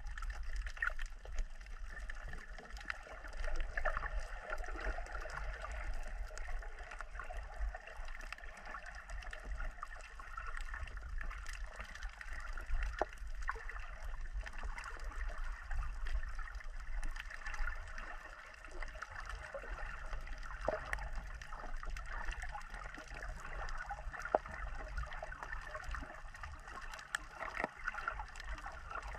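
Water gurgling and sloshing around a snorkeling camera, with a steady low rumble and many small scattered clicks.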